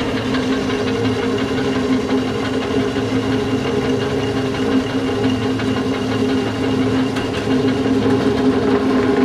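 Small feed pellet mill driven by a 2 hp electric motor, running with a steady hum as it presses chicken feed into pellets. Pellets spill off its chute into a plastic tub.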